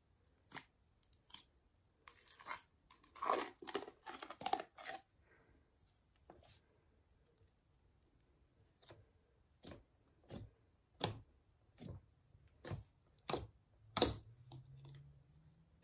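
Glittery slime being handled: a burst of crackling and popping as fingers work it, then single clicks and pops about one every three-quarters of a second as a hand presses the slime flat into a plastic tub, the loudest pop near the end.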